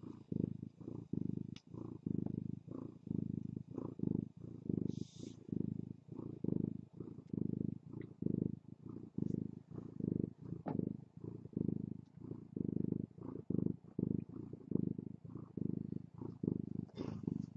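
A nursing mother cat purring in a steady rhythm of in-and-out breaths.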